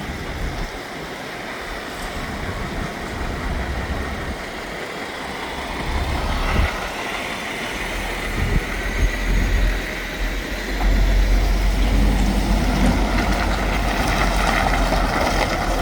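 Heavy-haulage lorry's diesel engine running, getting louder about two thirds of the way through as it pulls away with its load.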